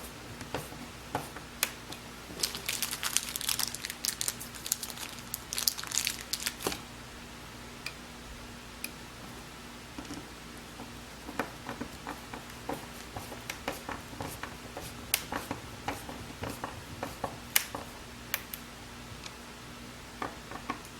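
Hinge screws being driven into a cabinet door to mount a concealed hinge: a few seconds of dense crackling scraping early on, then scattered clicks and taps as the screws and hinge are handled.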